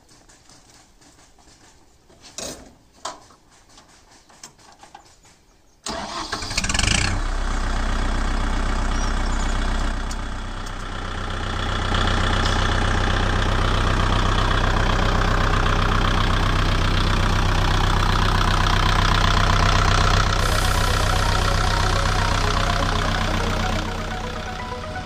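Kubota MU4501 tractor's four-cylinder diesel engine cranking and catching about six seconds in, then running steadily at idle; it grows louder at about twelve seconds. Before the start, two short clicks.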